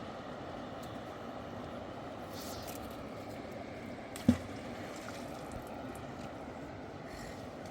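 Steady rushing background noise with one sharp knock about four seconds in.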